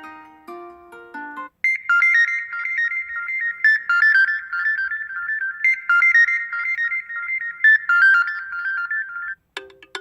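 Poco X5 Pro stock ringtones. A marimba-like tune ends about 1.5 s in, and after a brief break a new ringtone of fast, high repeating notes plays its phrase twice. It stops shortly before the end, where the next, lower ringtone begins.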